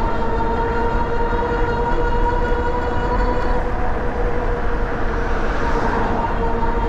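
Steady whine from an Ariel Rider Kepler e-bike's hub motor at an even cruising speed, over a constant low rumble. A brief rise of hiss comes about five seconds in.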